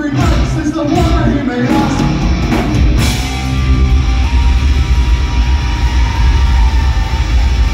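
A live heavy rock band playing loud distorted guitars, bass and drums, with singing over the first few seconds, then a held chord ringing out with heavy bass.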